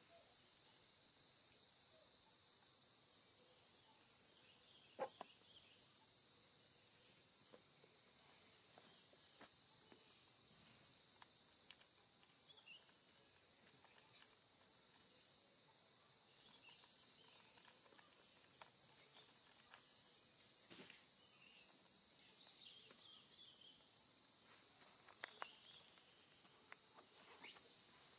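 Steady high-pitched drone of an insect chorus, with a few faint sharp clicks, the loudest about five seconds in and two more near the end.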